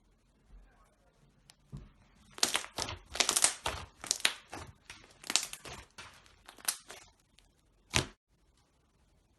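Slime being squeezed and pressed by hand, giving a run of sharp crackles and crunches, with one last crack near the end.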